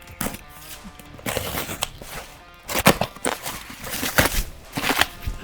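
A cardboard box being opened by hand: irregular rustling, scraping and crackling of cardboard and packing, growing busier after about a second and again near the middle.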